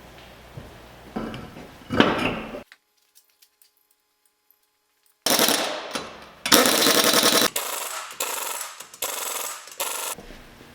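Socket ratchet clicking in quick runs as a drain plug is tightened, with a knock about 2 s in and a stretch of dead silence before the clicking starts about halfway through.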